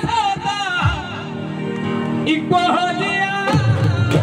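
Live Punjabi song played through a PA sound system: a singer holds wavering, ornamented notes over steady instrumental backing. Heavy low drum beats come in near the end.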